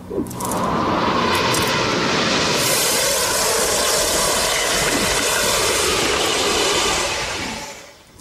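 A loud rushing roar, like a jet engine or a gale, swells up within the first second, brightens about two and a half seconds in, and fades away near the end: a dramatic television sound effect.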